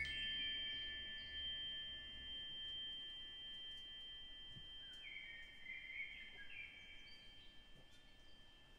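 High metal chimes ringing softly: a strike at the start that rings on and fades, then a few more notes about five to six and a half seconds in, dying away.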